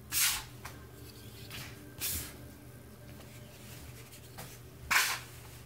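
A plastic dough scraper scraping across a floured table under very wet ciabatta dough: three short scrapes about two to three seconds apart, over a faint steady low hum.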